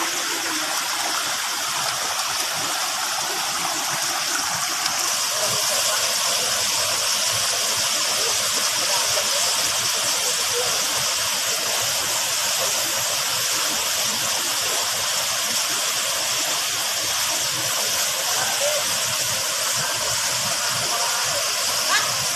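Waterfall's water rushing and splashing in a steady hiss, with no change across the stretch.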